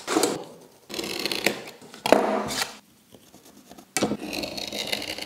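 Thin wood veneer and a steel ruler being handled and rubbed against a panel, heard as four short scratchy strokes.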